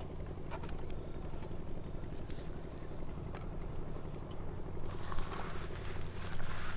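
A short, high chirp from a small animal, repeating at an even pace a little more than once a second, over a steady low rumble with a few faint clicks.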